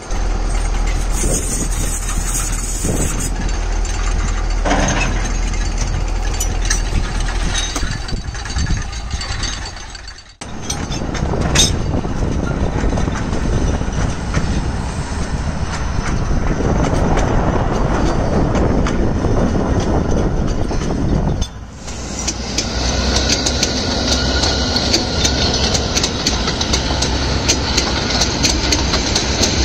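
A Bord na Móna narrow-gauge peat train running along the bog line, its loaded wagons rattling over the track with the locomotive's engine running. The sound breaks off abruptly twice where separate shots are joined, and is brighter and higher-pitched in the last part.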